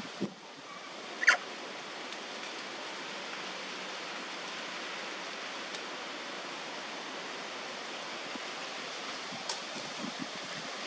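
Steady outdoor background hiss, like wind through trees. About a second in there is one brief, sharp, high-pitched squeak, the loudest sound here.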